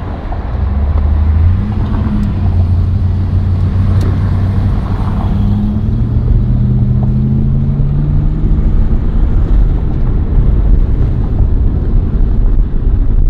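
The 5.7-litre LS1 V8 of a 1999 Pontiac Trans Am WS6 pulling under acceleration with its automatic gearbox, heard from the cabin with road noise. The engine note climbs, drops at an upshift about six seconds in, then climbs again.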